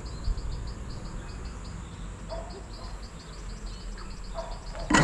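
Insects chirping in a steady rhythm, several short high chirps a second, over a low steady rumble.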